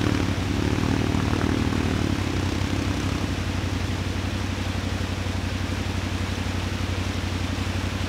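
ATV engine idling steadily, with the rush of a swollen, fast-running mountain creek behind it.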